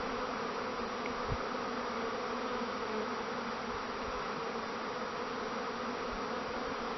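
Honeybees buzzing steadily in a swarm around an open hive.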